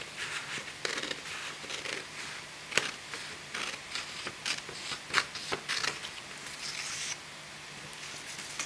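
Scissors cutting through a sheet of paper in a series of irregular snips, stopping about seven seconds in.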